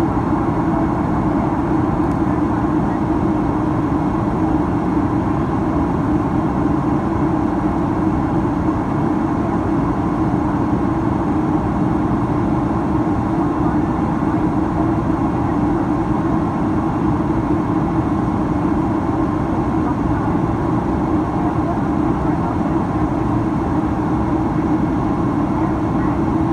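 Steady in-flight cabin noise of a Boeing 767-300ER heard from a window seat over the wing: engine and airflow noise with a low hum standing out, unchanging throughout.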